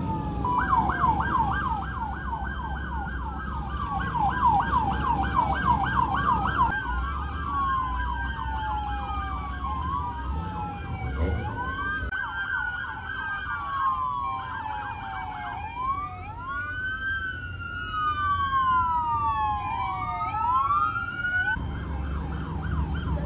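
Police sirens sounding, switching from a fast yelp of about four sweeps a second to a slower up-and-down wail, with more than one siren overlapping in the second half, over a low rumble of traffic.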